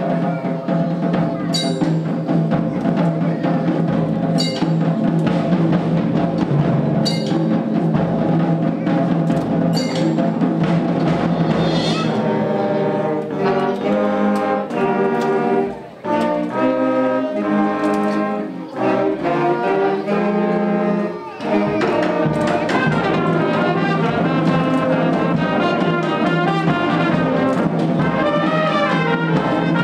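High school concert band playing, led by brass. Held chords are marked by a percussion strike about every three seconds, then the band plays short, accented chords broken by brief pauses, before going into fuller continuous playing.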